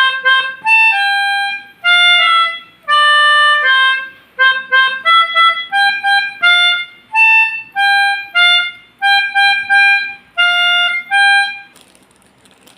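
Melodica (pianika) playing the bus 'telolet' horn tune: a run of short and held reedy notes that stops about a second before the end.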